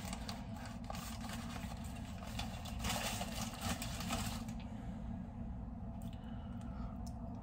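Paper sandwich wrapper crinkling and rustling as it is opened, busiest about three to four seconds in and thinning out after that, over a steady low hum.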